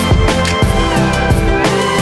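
Music with a steady drum beat and held, gliding synth lines.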